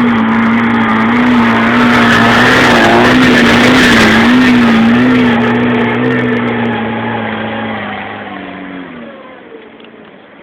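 Car engine running hard at high, slightly wavering revs as a trials car drives up the section. It is loud for the first half, then fades away over the last few seconds, its pitch dropping as it goes.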